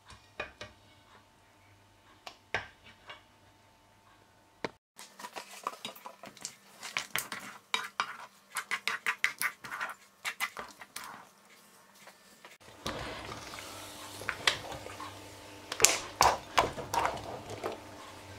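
Wire whisk working through thick, stretchy homemade kaşar-style cheese mixture in an enamelled pot, clicking and scraping against the pot's sides. The strokes come sparsely at first, then quickly at about four a second, and are loudest near the end.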